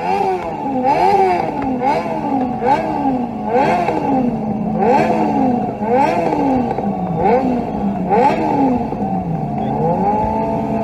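Motorcycle engine with an open, upturned exhaust being revved hard again and again, about once a second, each rev climbing quickly and dropping back; near the end it is held at high revs. A steady engine note runs underneath.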